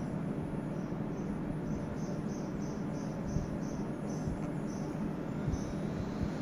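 Insect chirping: a run of short, high chirps, about three a second, starting under a second in and stopping about five seconds in.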